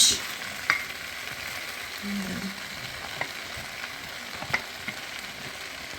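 A spoon stirring and mixing rice with chicken and vegetables in a pot, making scattered light clicks and scrapes over a steady hiss.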